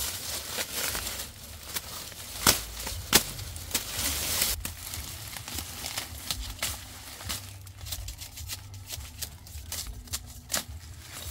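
Dry sugarcane leaves and stalks rustling and crackling as they are handled and pulled, with many small snaps and a couple of sharp cracks about two and a half and three seconds in. Busier and louder in the first half.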